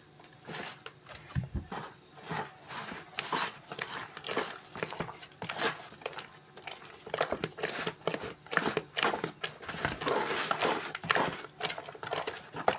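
Wooden spoon stirring thick, hot tapioca-starch batter in a plastic bucket, scraping the sides and bottom in quick, irregular strokes as sugar is worked in to dissolve.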